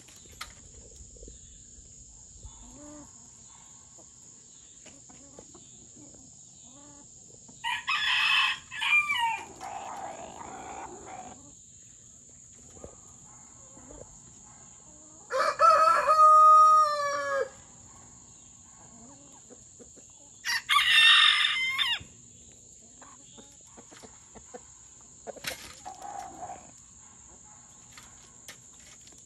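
Chickens squabbling: loud harsh squawks come in two bursts, and between them a rooster crows once, about two seconds long, roughly halfway through. Softer clucks follow near the end, over a steady high insect buzz.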